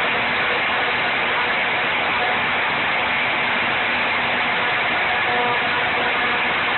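Router spindle of a homemade CNC machine running steadily as it v-carves aluminum with a 60-degree drill-mill. The sound is a dense, even noise with a faint steady whine.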